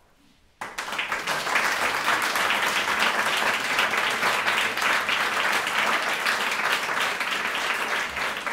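Audience applauding. A brief near silence, then the clapping breaks out suddenly about half a second in and keeps up steadily.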